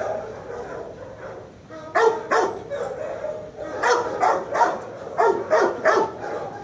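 Dogs barking in a shelter kennel: three bouts of about three quick barks each, starting around two seconds in.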